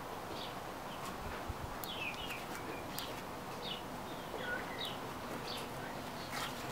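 Small birds chirping on and off: many short, quick chirps, several falling in pitch, over a faint steady outdoor hiss, with a few faint clicks.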